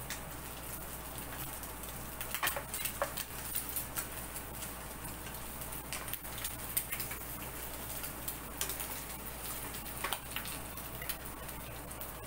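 Egg frying in a hot pan: a steady sizzle with irregular crackles and pops.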